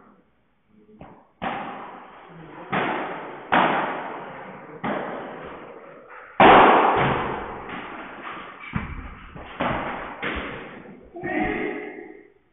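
Padel rally: a padel ball struck back and forth by the rackets and bouncing off the court and walls, about ten sharp pocks roughly a second apart, each echoing in the hall.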